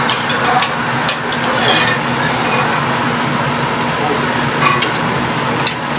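A metal ladle clinks against a stainless steel stock pot and the mussel shells as boiled mussels are scooped out, a few sharp clicks over a steady whirring background noise.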